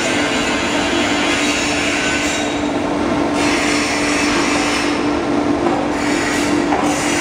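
Foam slicing machine running steadily with a constant hum while cutting memory foam into thin sheets.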